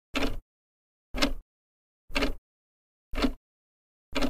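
A New Year countdown: a short, sharp sound once a second, five times, with dead silence in between.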